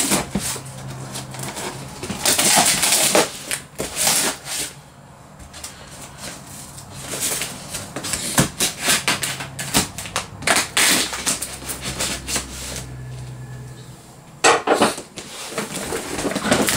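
Knife slicing through packing tape, plastic wrap and cardboard on a shipping box: irregular scraping, crinkling and clicking in uneven bursts, with the cardboard lid pulled loose near the end.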